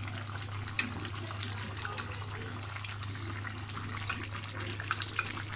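Thick beef-and-cabbage curry bubbling and sizzling in a karahi as its gravy cooks down with the meat nearly done, with a few sharp pops, over a steady low hum.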